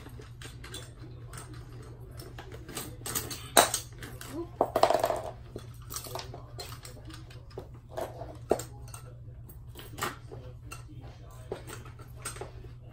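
Plastic toy doctor's-kit pieces clicking and clattering as they are handled and taken out of a bag, loudest in a burst of rattling about three to five seconds in, over a steady low hum.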